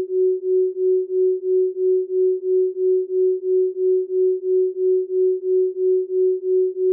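Isochronic tone: a single pure tone pulsed on and off at an even rate of about three beats a second.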